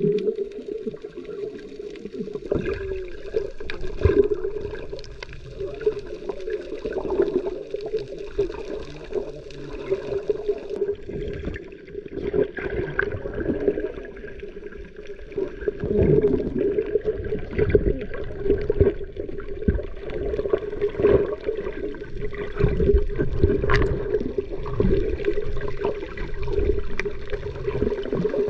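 Sea water sloshing and gurgling, with a steady hum underneath.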